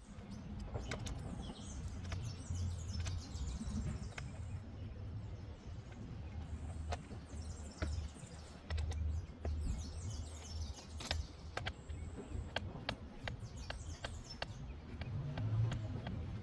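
Light, scattered metal clicks of a 6 mm Allen wrench turning the seat screws of an electric dirt bike. Birds chirp in several short bursts over a steady low rumble.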